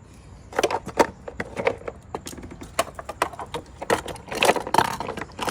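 Small toy trains and track pieces clicking, knocking and scraping together as they are handled, in quick irregular taps.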